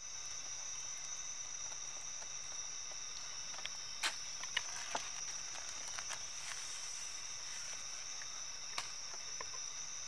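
Steady high-pitched chirring of insects, with a few sharp light clicks around the middle and one near the end as a stainless-steel bowl is tipped and emptied.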